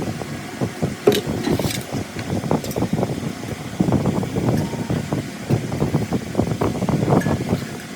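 Irregular knocks, clicks and scraping of hand work on metal parts.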